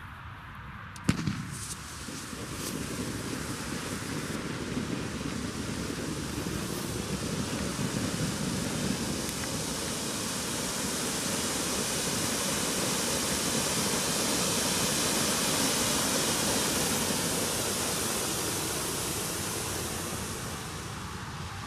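Ground firework fountains spraying sparks with a steady rushing hiss that builds through the middle and fades near the end. A single sharp crack about a second in, followed by a few smaller clicks.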